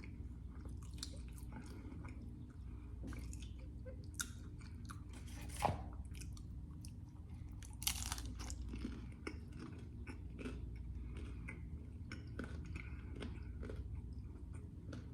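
A person chewing and biting into pizza with ranch, with faint wet chews and crunches of the crust.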